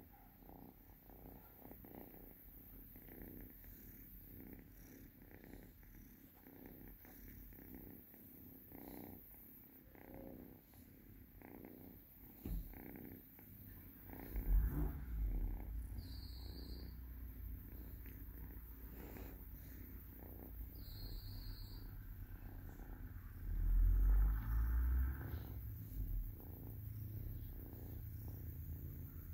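Two-month-old kitten purring steadily while being stroked. The purr swells into a deeper, louder rumble about halfway through and again near the end.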